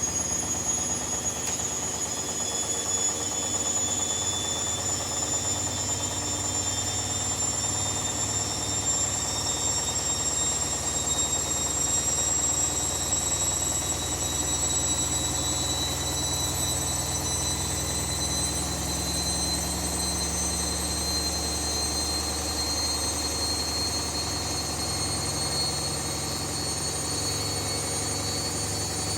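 Hoover Dynamic Next 7kg washing machine spinning, its motor's high whine rising slowly over a steady low hum as the drum speeds up.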